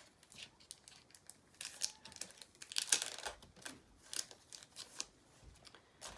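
Packaging crinkling and rustling in irregular bursts, with light taps, as small paper items are unwrapped and handled.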